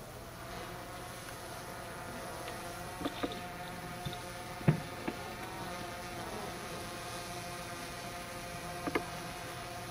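A steady buzzing hum runs under a few sharp knocks, the loudest about halfway through and another near the end, as soldiers set the remains down into the grave.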